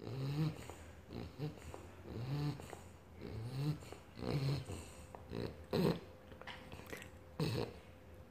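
A three-month-old British bulldog puppy snoring: a low, rough snore on each breath, repeating about once every second or so, with two louder snorts in the second half.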